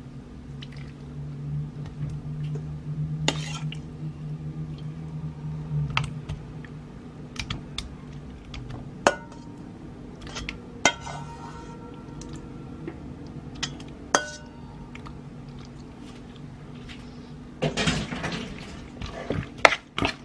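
Raw chicken being tipped from a steel bowl into an enamel bowl of marinade: scattered sharp clinks and knocks of bowls and utensils over a steady low hum, then a utensil stirring and scraping in the bowl near the end.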